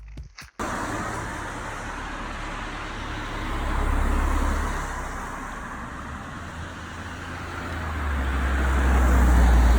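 Road traffic noise: a steady hiss of passing vehicles, with two vehicles going by, one about four seconds in and a louder one near the end, each a slow rise and fall of low rumble.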